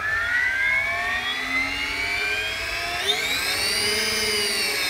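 Electric RC helicopter motor and drivetrain spooling up with the blades removed: a rising whine that steps up in pitch about three seconds in, then levels off. The ESC governor is bringing the head up to a 1,000 rpm test head speed.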